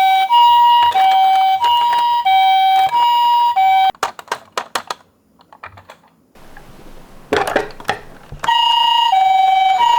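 Electronic two-tone 'pee-po' siren of a toy ambulance minicar, alternating a high and a low tone. It cuts off about four seconds in, followed by a quick run of clicks, a short lull and a clatter, then starts up again near the end.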